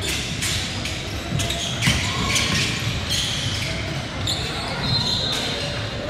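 A ball game in a gymnasium, echoing in the large hall: a ball bouncing on the court with repeated knocks, high shoe squeaks, the longest about four seconds in, and background crowd voices.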